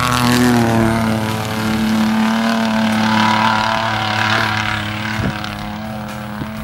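Engine of a Toyota Tacoma pickup on 44-inch tires driving past on snow. Its note drops slightly in pitch as it passes, then holds steady and fades as the truck drives away.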